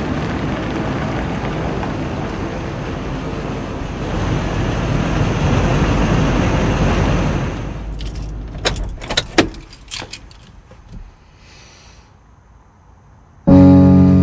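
A Toyota SUV driving past, its engine and tyre noise steady and swelling a little before cutting off about eight seconds in. Then a few clicks and a jingle of keys at the ignition inside the cab, and guitar music starting just before the end.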